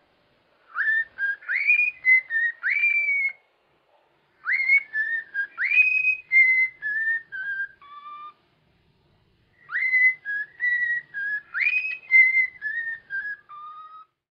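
Cockatiel whistling its song: three phrases of short whistled notes, many swooping upward, each phrase ending on a lower note, with pauses of about a second between them.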